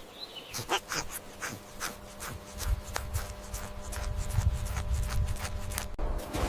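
Hedgehog scratching and rustling, a run of quick scrapes and scuffs, with low thudding from about two and a half seconds in. A faint steady hum sits underneath and stops shortly before the end.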